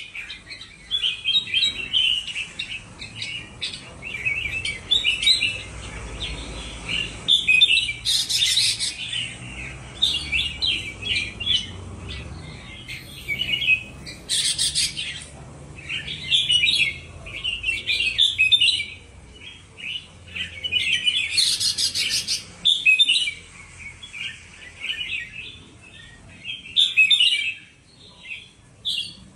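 Two caged red-whiskered bulbuls (Indonesian strain) singing against each other in a song duel, rapid chirpy phrases one after another, with three brief harsh, hissy bursts among them.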